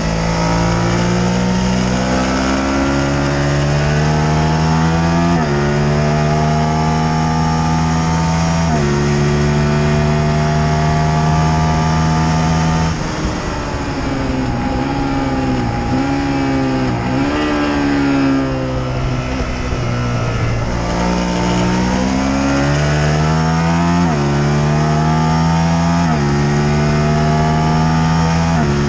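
Motorcycle engine accelerating hard up through the gears, its pitch climbing and dropping at each upshift; about halfway it shuts off and blips down through three gears, then pulls up through several quick upshifts again near the end. Wind rush over the moving bike runs under it.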